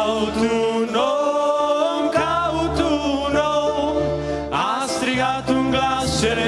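A male vocal group singing a Romanian Christian song together, over a steady accordion and keyboard accompaniment.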